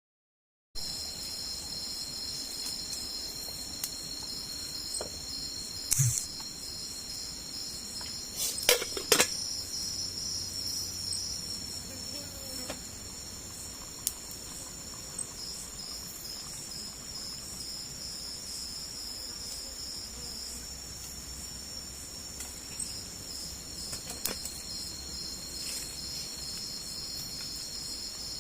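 Steady insect chorus, cricket-like trilling in several high pitches with a pulsing beat. A few sharp knocks or snaps come about six and nine seconds in.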